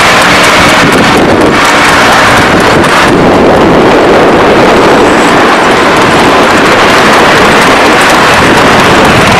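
Loud, steady rush of wind buffeting the microphone of a moving car, mixed with the car's road noise.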